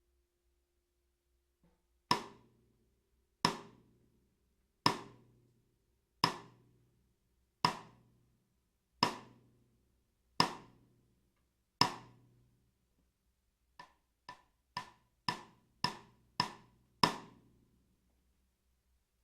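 Tama Artwood solid maple 14x8" snare drum struck with a stick: eight single hits about one every second and a half, each ringing out, then a quicker run of strokes, about two a second, growing louder toward the end.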